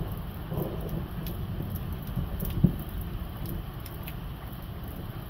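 Thunder rumbling low and slowly fading, with scattered raindrop ticks and one sharper tap about two and a half seconds in.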